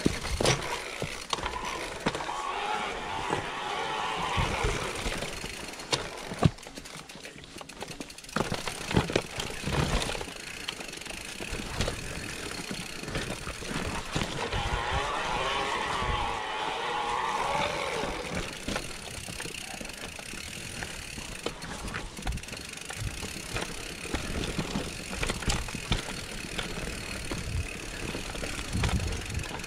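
Mountain bike descending a rocky singletrack trail: tyres rolling over stones and the bike rattling, with frequent sharp knocks from bumps.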